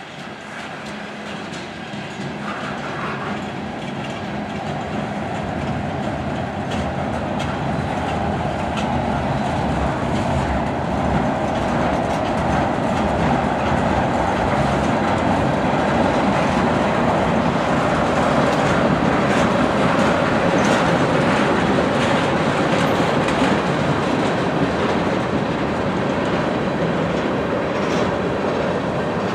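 Freight train cars rolling past: flatcars loaded with large pipe, tank cars and open-top hoppers. A steady rumble of steel wheels on rail, with clicks over the rail joints, grows louder through the first half and then holds.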